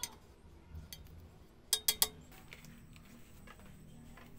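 Small wooden parts clicking and knocking together as they are handled, with three sharp clicks in quick succession about two seconds in, over a faint low hum.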